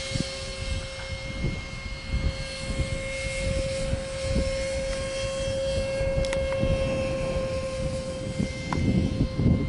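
Radio-controlled model airplane's motor and propeller running at a constant pitch, a steady hum heard from the plane in flight overhead. A low, uneven rumble lies under it and grows louder near the end.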